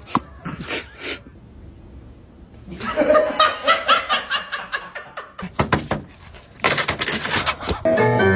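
People laughing in repeated short bursts, with a couple of short bursts at the start and longer bouts of laughter from about three seconds in.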